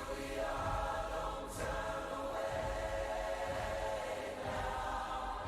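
Music with a choir of voices holding long, steady chords.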